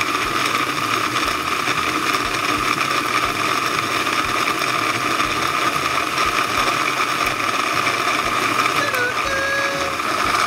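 Electric food chopper running steadily at speed, its blade churning small pieces of thinking putty in the plastic bowl, with a strong steady motor whine.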